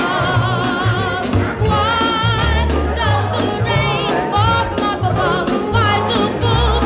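Background music with singing: a wavering sung melody over a steady bass line.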